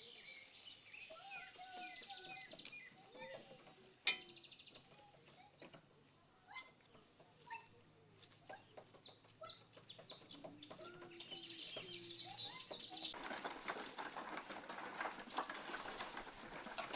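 Chickens clucking and small birds chirping, with scattered knocks and clicks, including one sharp knock about four seconds in. In the last few seconds a rough, steady noise comes up over them.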